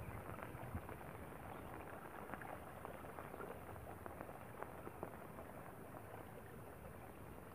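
Muddy water running and splashing steadily through a plastic sheet used as a fish trap, with small scattered crackles as the wet plastic is handled.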